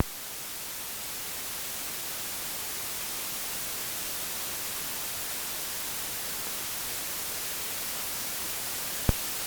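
Steady hiss of static on the audio line, the high noise floor that appears once the AC-2EX aviation intercom is plugged into the 9er Systems USB interface. The cause is unknown; the uploader suspects a ground connection missing in this setup. A single click comes near the end.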